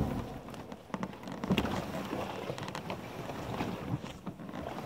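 Plastic kayak being dragged by its carry handle over brushy ground to the shore. The hull makes irregular scrapes and knocks.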